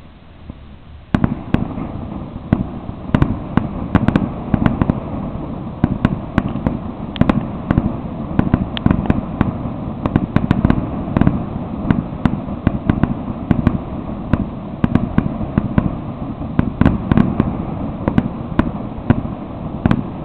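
Fireworks display: about a second in, a dense run of aerial shell bursts and bangs begins, several to a second, and keeps going without a break.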